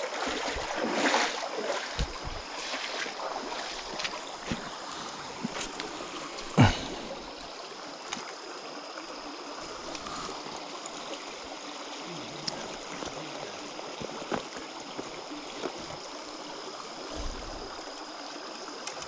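Shallow creek water running steadily, with scattered small knocks and rustles and one sharp knock about six and a half seconds in.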